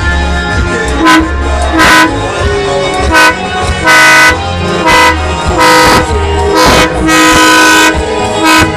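Loud pitched horn blasts, about a dozen at an uneven rhythm, some short and a few held for up to a second, over music with a steady bass line.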